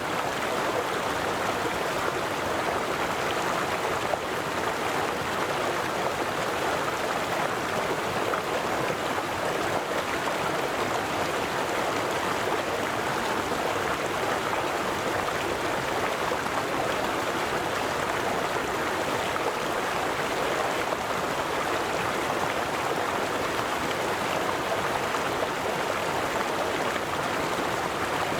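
River water flowing steadily: an even rush of running water that does not change.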